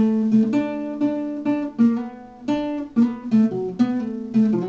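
Nylon-string classical guitar playing a short melodic phrase, about three plucked notes a second, each ringing on over low bass notes.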